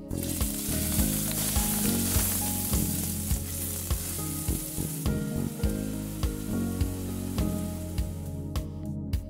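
Chopped red onion dropped into hot oil in a stainless steel pot, sizzling as soon as it goes in and easing off about halfway through as it is stirred with a metal spoon.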